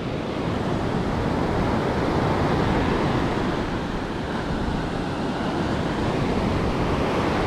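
Ocean surf breaking and washing up a sandy beach, a steady rushing wash, with wind rumbling on the microphone.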